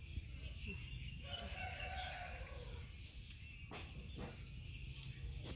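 A rooster crowing: one drawn-out call about a second in, followed a little later by two light knocks.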